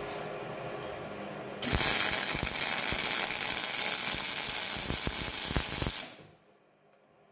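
MIG welding arc crackling as a rebar anchor is welded to a steel base plate. It starts about one and a half seconds in, runs steadily for about four seconds, and cuts off suddenly when the trigger is released.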